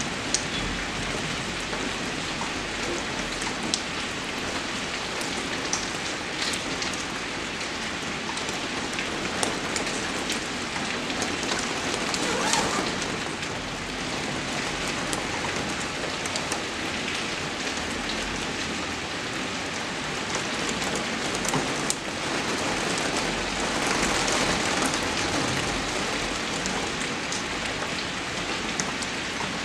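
Steady rainfall, a constant hiss of drops with scattered sharper close drops ticking through it. The downpour swells briefly about twelve seconds in and again later.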